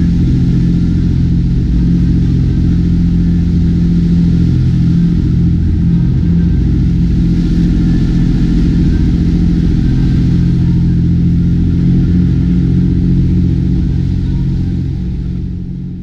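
Speedboat engines running at speed, a loud steady low drone, with the rush of water and spray along the hull; it fades out near the end.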